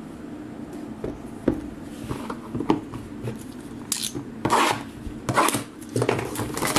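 A cardboard trading-card hobby box being handled and laid flat on a table: scattered knocks, taps and rubbing scrapes, with a sharp click about a second and a half in and a brighter scrape about four seconds in.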